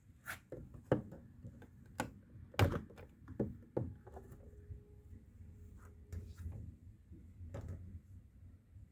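Whirlpool FL 5065 front-loading washing machine giving a series of irregular knocks and thuds over a low hum. The loudest knock comes about two and a half seconds in, and a faint steady tone sounds for about two seconds in the middle.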